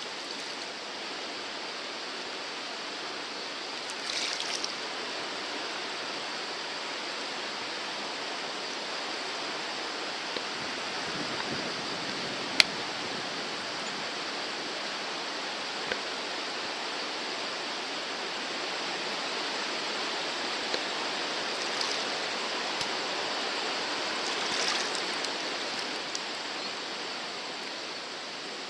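Swollen, typhoon-fed river water rushing steadily, with a few brief splashy bursts and one sharp click about twelve seconds in.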